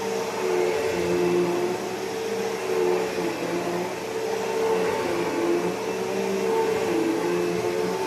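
Bissell PowerForce Bagless Turbo 6596 upright vacuum cleaner running with its 12-amp motor, a steady whir with a pitch that dips and rises slightly every second or so.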